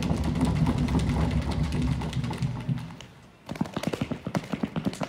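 A drum roll, a fast low rumble of rapid strikes, which stops about three seconds in. After a brief lull comes a patter of irregular knocks.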